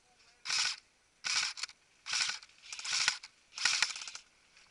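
Airsoft electric gun firing about five short full-auto bursts, each a fast mechanical rattle lasting under half a second, with the longest near the middle.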